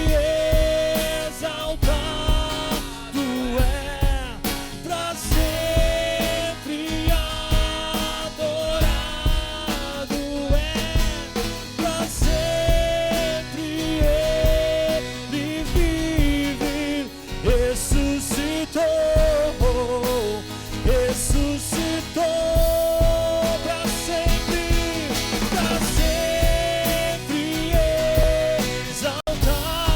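Live worship band music with a steady drum kit beat, sustained chords and a bending lead melody line, played loud without clear words.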